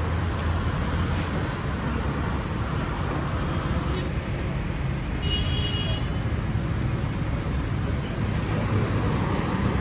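Steady road-traffic noise with a low rumble, and a short high-pitched beep about five seconds in.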